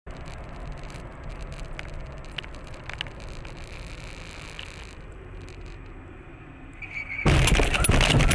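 Dashcam recording of a car driving, with steady engine and road noise from inside the car. About seven seconds in comes a sudden loud crash of impact and jolting as the car leaves the road onto the grass verge, and the noise stays loud to the end.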